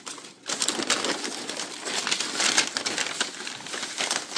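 Packing paper and shredded paper filler rustling and crinkling as a hand digs through a cardboard shipping box. It starts about half a second in.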